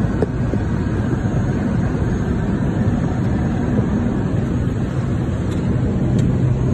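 Airplane cabin noise heard from a window seat: a steady low drone of engines and rushing air.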